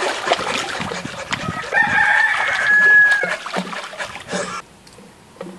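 Water splashing as a swimmer thrashes in a pool, then a rooster crows once, about a second and a half long, the loudest sound here. The sound drops away abruptly a little over a second later.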